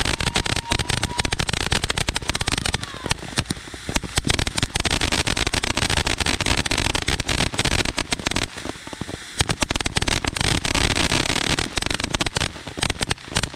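A tube firework set on the ground firing a continuous stream of crackling stars: dense, rapid crackling over a steady hiss, which cuts off suddenly near the end.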